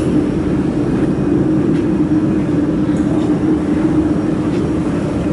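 Steady mechanical hum from a freshly powered-up laser welding machine and its cooling equipment running, with a constant drone and a few faint ticks.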